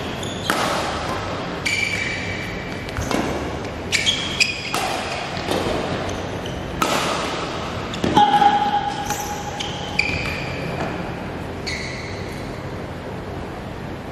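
Badminton rally: rackets strike the shuttlecock in a quick exchange, about once a second, ringing in a large hall, with sneakers squeaking on the court floor, one long squeak about eight seconds in. The strikes die away over the last few seconds.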